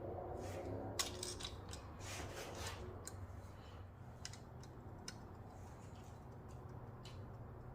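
Faint, scattered clicks and metallic ticks from a wrench and torque-angle gauge turning the cam cap bolts, over a low steady hum.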